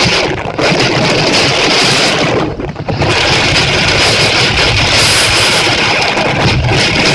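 Heavy typhoon rain and gusting wind, a loud, continuous rushing noise with wind buffeting the microphone; it eases for a moment about two and a half seconds in.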